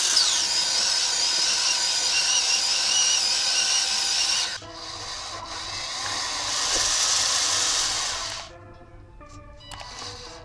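A small electric motor running with a high, wavering whine that drops away suddenly about four and a half seconds in; a softer rushing noise follows, swells, and fades near the end.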